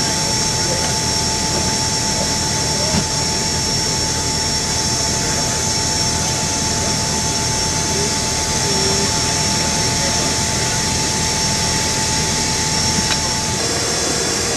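Steady roar of a C-17 Globemaster III's four turbofan engines heard inside the cargo hold, with a constant high whine over it; one whining tone shifts lower near the end.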